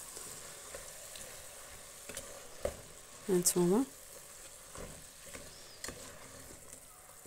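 Tripe and offal with carrots, onion and herbs sizzling in oil in an aluminium pot, the frying stage of the dish, stirred with a wooden spoon that knocks and scrapes against the pot a few times.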